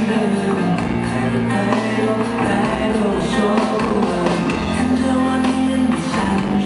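Live concert music heard from the audience through the arena's sound system: slow, sustained chords that change every couple of seconds.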